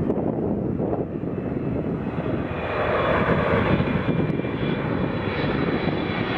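Boeing 777F freighter's twin GE90 turbofan engines on landing approach, passing low overhead: a deep rumble that grows louder, with a high fan whine coming in about halfway through.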